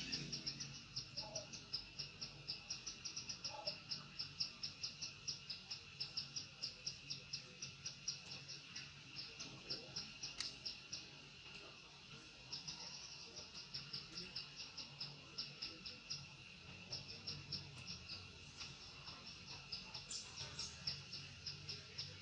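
Insects, crickets by the sound of it, chirping in a fast even train of short high chirps, about four or five a second, over a steady high drone. The chirping pauses for a moment about halfway through.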